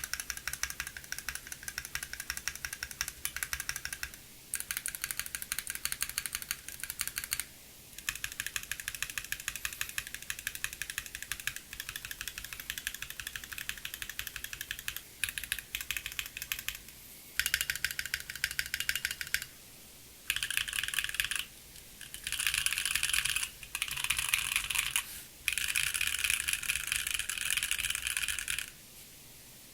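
Typing on a Bakeneko60 mechanical keyboard with an FR4 plate and stock Gateron Baby Raccoon linear switches, with the case's hollow ping. The keystrokes come in fast runs with short pauses between them, and the runs in the second half are louder and denser.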